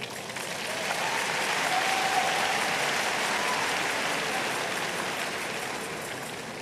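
Large crowd applauding in a big hall, swelling over the first couple of seconds and then slowly dying away.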